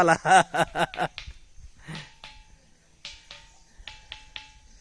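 The Thinthini ringing rock struck repeatedly with a small hand stone. Each strike is a sharp clink followed by a short metallic ring, about eight strikes in quick, uneven succession.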